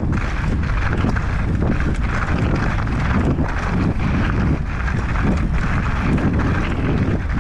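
Wind buffeting the microphone during a fast mountain-bike descent, over the tyres running on rough ground, with frequent short knocks and rattles from the bike.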